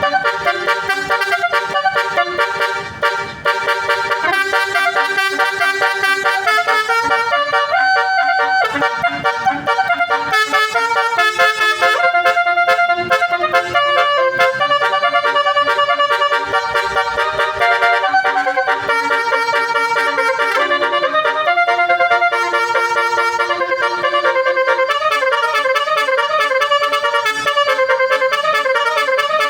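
Basuri-style 'telolet' multi-tone horn playing a tune. The held horn notes step to a new pitch about every half second to second.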